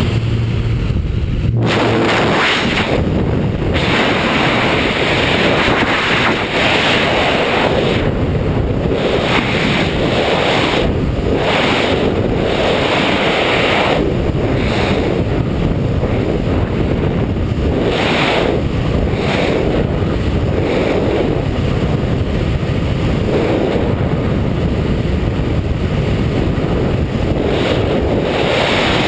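Airflow rushing over a GoPro's microphone during wingsuit freefall: loud, steady wind noise that swells and eases every few seconds.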